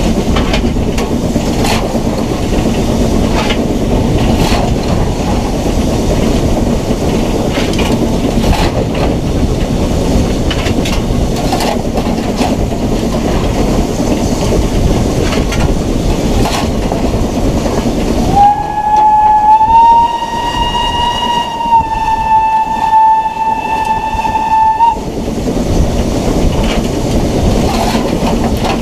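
BR Standard 9F 2-10-0 steam locomotive running along the line, with steady running noise and irregular clicks of the wheels over the rail joints. About two-thirds of the way through, its whistle sounds loudly for about six seconds: one note that rises slightly as it opens, then holds steady and cuts off.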